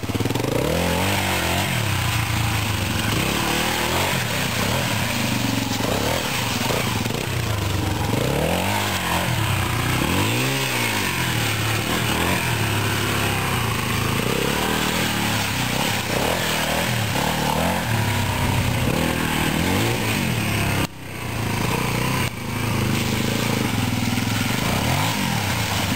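Honda XL250R dirt bike's single-cylinder four-stroke engine being ridden, revving up and easing off again and again. The sound drops out briefly about five seconds before the end.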